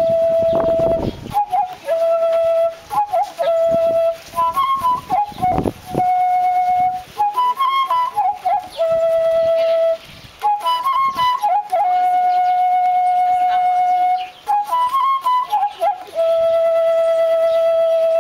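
Solo flute playing a slow melody: long held notes broken by quick ornamented flourishes. There is a low rumble in the first second and again briefly about six seconds in.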